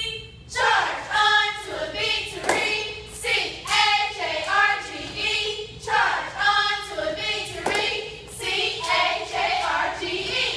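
A group of cheerleaders shouting a cheer in unison, in short rhythmic phrases, with claps marking the beat.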